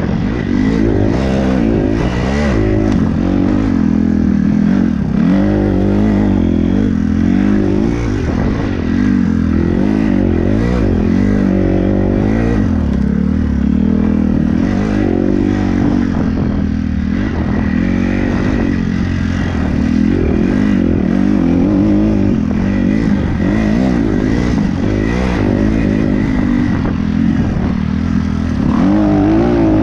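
Kawasaki 250cc dirt bike engine being ridden hard, its revs rising and falling over and over through the throttle and gear changes, heard from the rider's helmet with wind noise. The revs climb again near the end.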